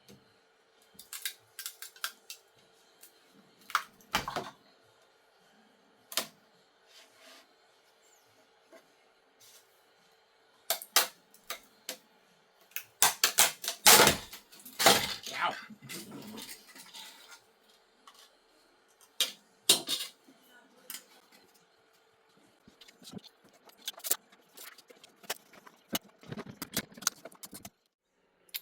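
Metal tools and hard plastic clicking, clinking and scraping as a finished 3D print is worked free of the printer's build plate, in scattered knocks with a burst of clatter about halfway through.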